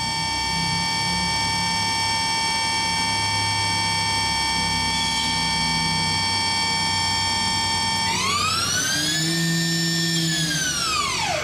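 YCM Supermax XV1020A vertical machining center's spindle running at 5,000 RPM with a steady high-pitched whine. About eight seconds in, the pitch swells up and then sweeps steeply down to a lower steady whine as the spindle is stepped down in speed.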